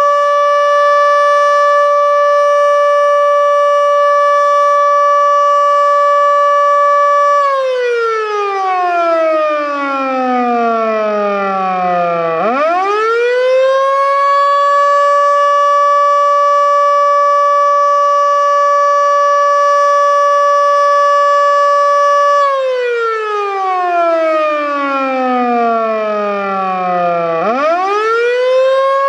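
Federal Signal Model 2 outdoor warning siren sounding its attack signal. It holds one steady, loud wail, winds down in a long falling glide about seven seconds in, then winds quickly back up and holds again. It winds down once more past twenty seconds and is winding back up near the end. Its bearings are already worn, as the uploader hears it.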